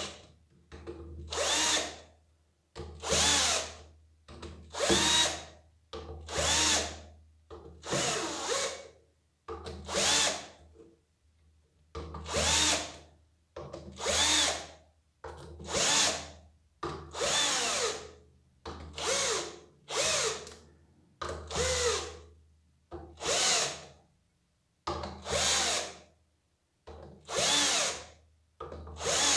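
Cordless drill-driver running in short pulses, about one every second and a half, its motor whine rising and falling in each, as it slowly drives screws into the pressure washer's pump head.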